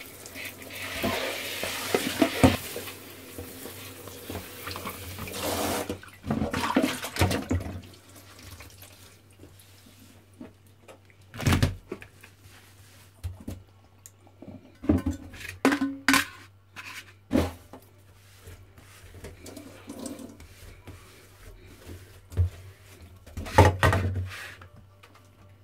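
Water running into a kitchen sink for about the first six seconds, then short splashes as brown crabs are washed in a bowl of water. After that come scattered sharp knocks of crab shells and a plastic colander and bowl being handled in the sink.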